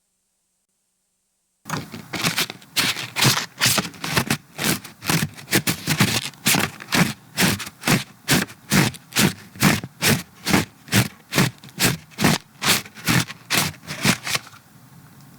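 Homemade Foley sound effect made with household objects: a steady rhythm of scraping, rattling strokes, about two to three a second, starting a couple of seconds in and dropping away near the end.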